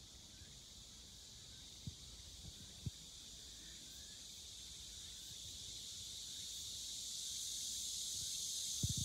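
Steady, high-pitched insect drone that slowly grows louder. A few soft low thumps sound around two and three seconds in and again near the end.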